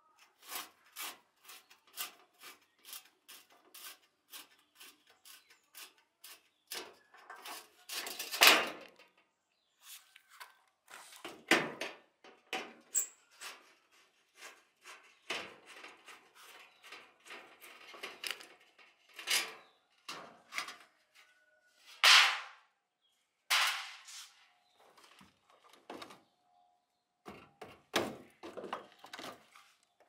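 Ratcheting screwdriver backing screws out of a washing machine's sheet-metal panel: runs of short sharp clicks, about two to three a second, with a few louder knocks of metal in between.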